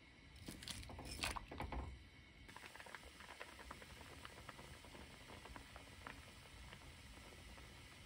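Cubed radish tipped into a pot of doenjang broth, a few splashes and knocks in the first two seconds. After that the stew is bubbling at a boil, a faint steady fizz with many small pops.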